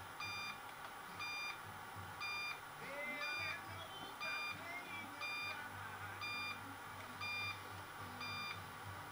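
Eaton Evolution 850 UPS alarm sounding short, high beeps about once a second, a fault warning from a unit that reports its battery pack is not charging.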